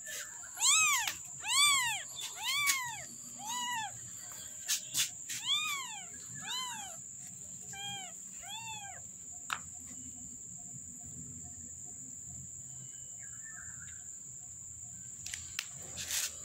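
A kitten mewing about eight times, high cries that each rise and fall in pitch, roughly one a second, dying away about nine seconds in. A steady high insect trill runs underneath throughout.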